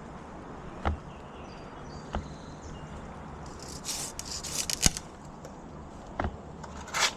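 A few sharp wooden knocks and two spells of leafy rustling and scraping, as branches and limb wood are handled and shifted, over a faint steady low hum.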